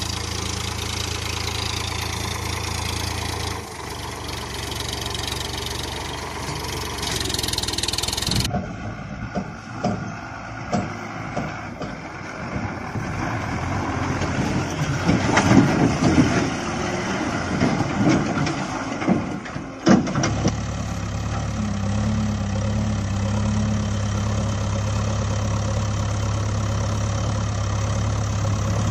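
Engine idling, a steady low hum that turns rougher and uneven, with scattered clicks, about eight seconds in, then settles back into a steady idle about twenty seconds in.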